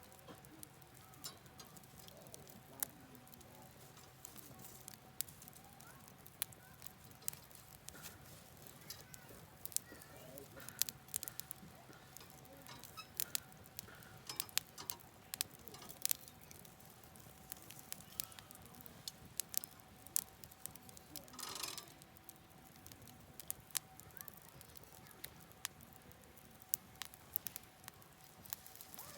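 Wood campfire crackling, with irregular sharp pops and a brief denser burst of crackling about three-quarters of the way through, over the steady rush of a stream.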